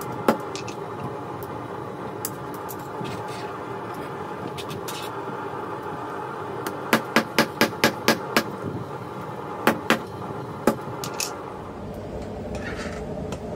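Hammer blows on a small stump anvil set on a laminated wood block. A single strike comes right at the start, then a quick run of about seven blows about seven seconds in, and a few scattered strikes after it, over a steady hum.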